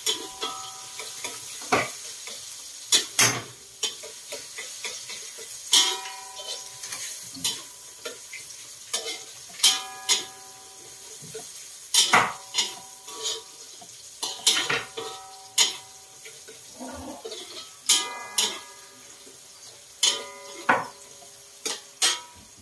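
Metal spatula stirring and scraping in a steel wok, garlic sizzling steadily in the hot oil. The spatula strikes the pan every second or two, and each strike leaves the wok ringing briefly.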